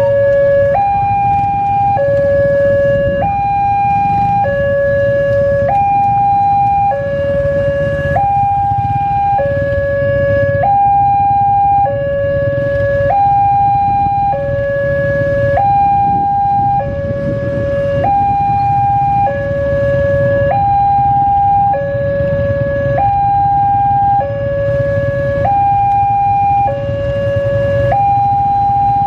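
Railway level crossing warning alarm sounding a two-tone signal, alternating evenly between a high and a low tone about once a second, warning that a train is approaching and the barriers are down.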